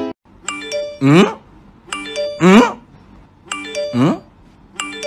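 Looped novelty sound-effect music: a short chime-like chord followed by a sliding pitch sweep, repeating about every second and a half.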